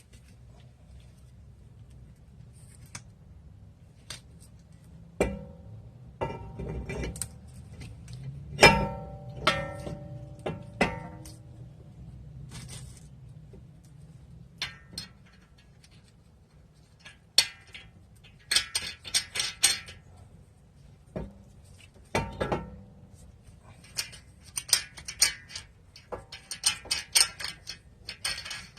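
Metal tools and parts clanking and clinking, with several sharp knocks that ring briefly and two stretches of quick rattling clicks.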